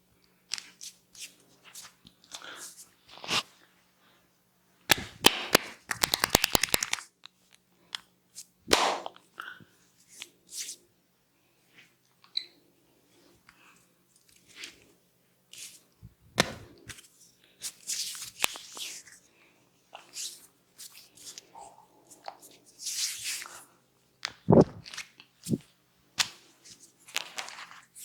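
Hands-on head massage: scattered sharp cracks and clicks, one quick run of rapid even clicks about six seconds in, rustling swishes of hands working through hair, and a dull thud near the end.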